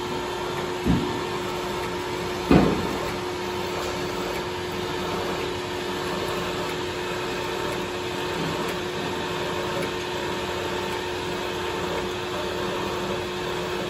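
Metal lathe running while a twist drill in the tailstock drill chuck is fed into the spinning workpiece: a steady machine hum with a steady tone. Two short knocks come about one and two and a half seconds in, the second the louder.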